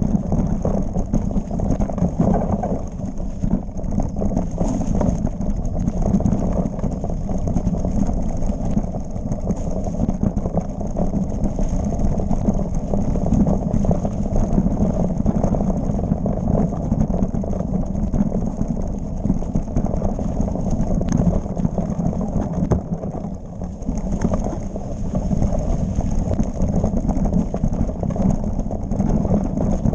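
Mountain bike descending a rough dirt trail at speed: a continuous rattle and clatter of the frame, chain and tyres over roots and stones, over a heavy low rumble.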